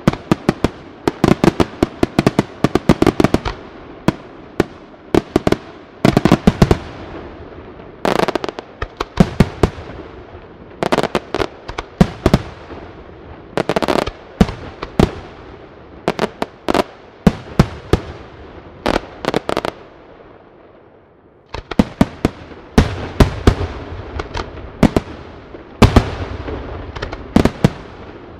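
Aerial firework shells bursting in quick clusters of sharp bangs, each with a short echoing decay. The bangs stop for a brief lull about two-thirds of the way through, then start again.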